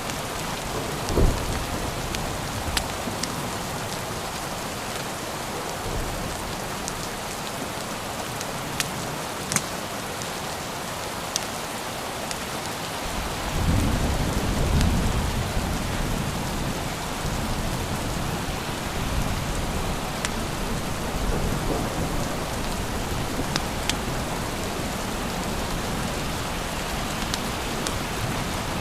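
Steady rain falling, with a short low thump about a second in and a long roll of thunder rumbling in about halfway through. A few sharp clicks stand out above the rain.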